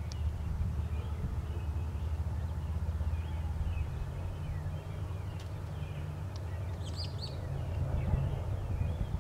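Faint background birdsong, scattered short chirps with a brighter burst of calls about seven seconds in, over a steady low rumble.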